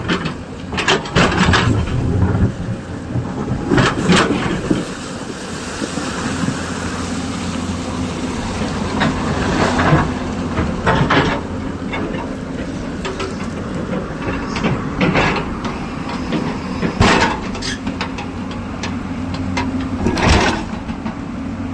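Excavator's diesel engine running steadily, with irregular clanks and knocks throughout.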